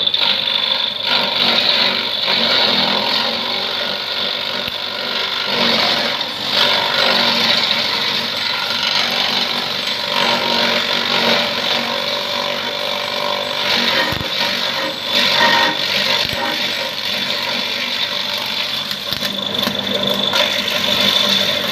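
Homemade electric grass chopper running, its motor spinning a round iron disc fitted with two blades: a steady mechanical hum with a high whine, rising and dipping a little now and then.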